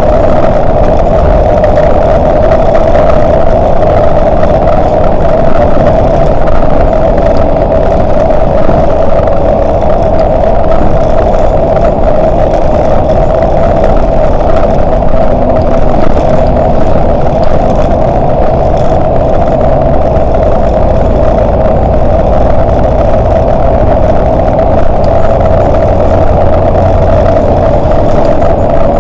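Volvo 8900LE city bus under way, its engine and road noise running steadily with a constant hum a little above middle pitch.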